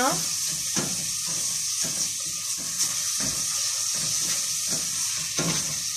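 Grated carrot and onion sizzling steadily as they fry in oil in a stainless-steel pot, with a silicone spatula stirring them in repeated strokes.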